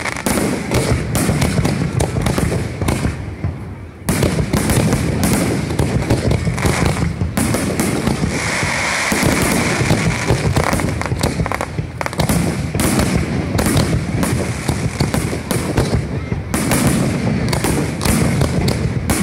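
Fireworks display: a dense, continuous run of aerial shells bursting with bangs and crackling, easing briefly about four seconds in before picking up again.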